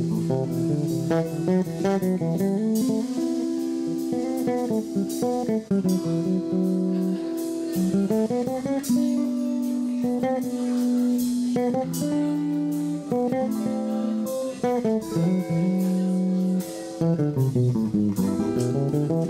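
Jazz trio playing: electric guitar carries a melody of held and sliding notes over bass guitar, with light drum and cymbal strokes.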